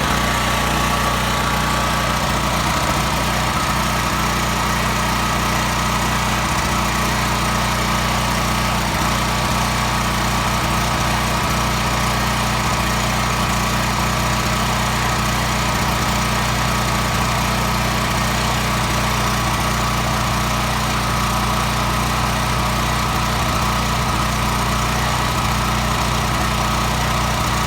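Predator 3200 generator's small gasoline engine running steadily at a constant speed, shortly after its first start in years.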